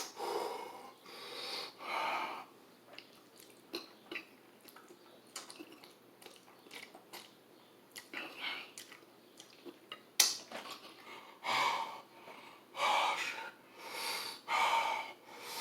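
Close-up eating sounds: chewing with small wet mouth clicks, then several hard, wheezing breaths in the second half, the breathing of someone fighting the burn of 2x spicy fire noodles.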